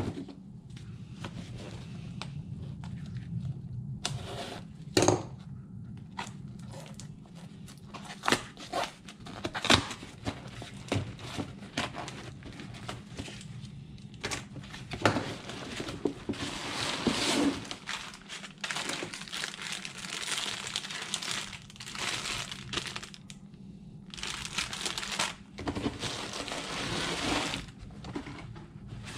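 A cardboard shipping box being cut and pulled open with a folding knife, with sharp knocks and scrapes. Then come long stretches of crinkling plastic bags and crumpled packing paper as the parts are unpacked.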